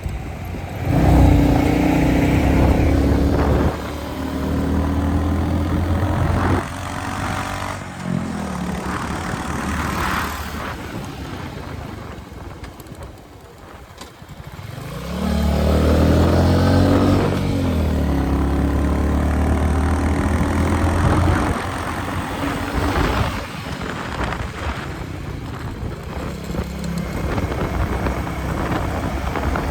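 Royal Enfield Meteor 350's single-cylinder engine and exhaust on the move. It pulls up strongly about a second in and again near fifteen seconds, its note easing off in steps between, and it drops away to its quietest around thirteen seconds before picking up again.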